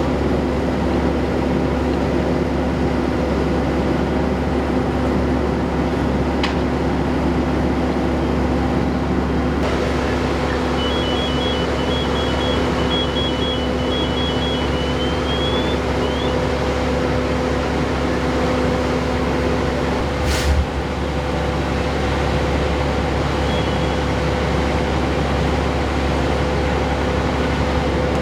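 Steady drone of an idling engine, as from a fire engine running at the scene, with a humming tone that drops out about twenty seconds in. A few faint, short high beeps sound near the middle.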